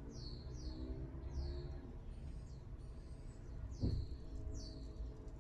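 A bird chirping over and over, short calls that fall in pitch, about two a second, with a soft knock about four seconds in.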